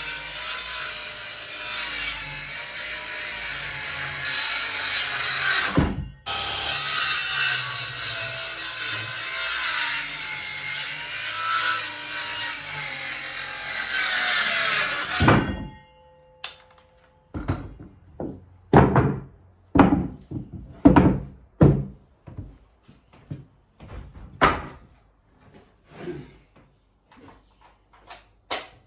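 Power saw cutting wood, running under load for about fifteen seconds with a short break near six seconds, its motor pitch wavering as it works. Then it stops and a run of separate short knocks and scrapes follows as wood is handled.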